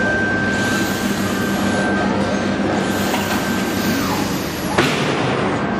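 Steady electrical hum and hiss of running factory machinery, with a high steady tone that stops about four seconds in and a sharp click a little before the end.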